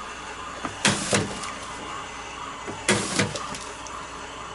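Automatic top label applicator applying labels to two boxes on a running conveyor: two short mechanical dispensing strokes about two seconds apart, each a quick double whir-and-snap, over the steady hum of the conveyor.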